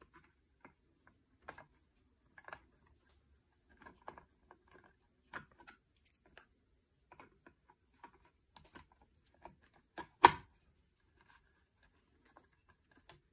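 Scattered small plastic clicks and taps from the bobbin and flyer of an Electric Eel Wheel Nano 2.0 electric spinning wheel being handled and fitted by hand, with one louder knock about ten seconds in.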